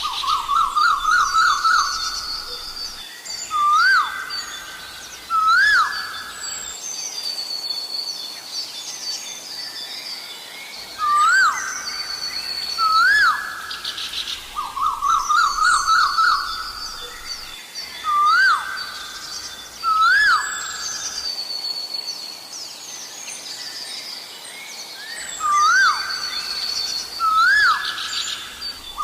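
Asian koel calling: loud rising whistled notes repeated every few seconds, often in pairs, with rapid runs of rising notes near the start and about halfway through. Smaller birds chirp at a higher pitch throughout.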